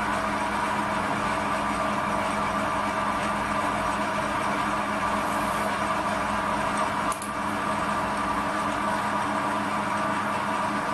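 Metal lathe running under power feed, taking a light skimming cut on home-cast aluminium round stock: a steady hum and whine from the motor and gearing over the hiss of the cut. A brief click about seven seconds in, with a short dip in the sound.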